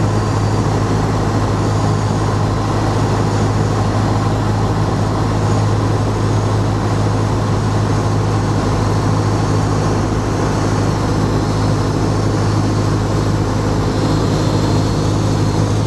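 Steady engine drone with a constant low hum and an even rushing noise, holding the same level and pitch.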